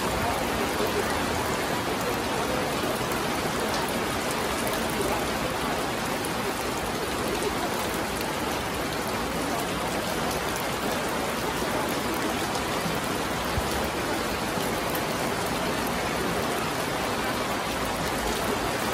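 Steady rain falling on wet stone paving and grass, an even hiss of many drops.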